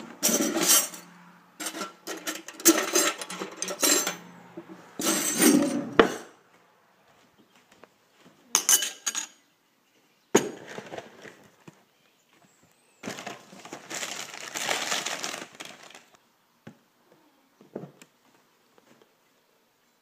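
Metal cutlery clattering and clinking in a kitchen drawer for the first few seconds as a spoon is taken out. After that come scattered knocks of a spoon and ceramic bowl, and a few seconds of rustling past the middle as a bag of flaked cereal is handled and poured.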